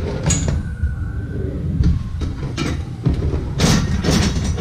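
Bowling-alley pinsetter machinery running: a steady low rumble with scattered metallic clanks and knocks, and a burst of rattling clatter about three and a half seconds in.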